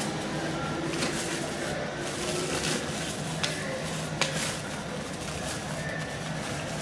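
Distant electric trains running through a rail yard: a steady rumble and hum from an approaching electric freight locomotive and a passing commuter train, with two sharp clicks midway.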